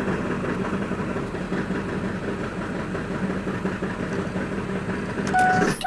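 2003 Ford 7.3 L Power Stroke turbo-diesel V8 idling with loud banging, a fault noise that goes away when RPM is added and whose cause the owner does not know. Near the end it gets louder for a moment, with a brief tone, then cuts off suddenly as the engine is shut down.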